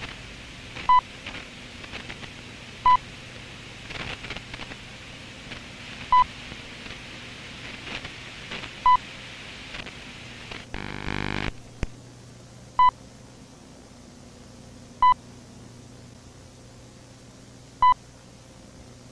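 Seven short, identical electronic beeps at uneven gaps of two to four seconds, the text-reveal beeps of a typed-out on-screen report, over steady tape hiss and a low hum. About eleven seconds in, a half-second burst of static.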